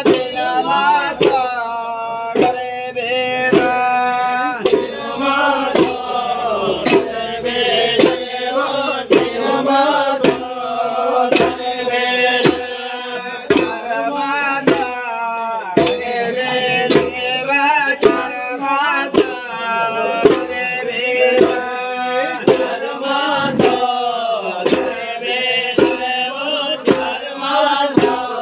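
Folk music: voices singing a wavering tune over large rope-tensioned barrel drums and small hand drums beating a steady rhythm, about two strokes a second.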